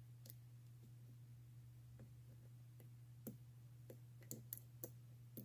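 Faint metallic clicks of a lock pick working the pins inside a three-pin laminated padlock, scattered at first and more frequent in the second half, over a steady low hum.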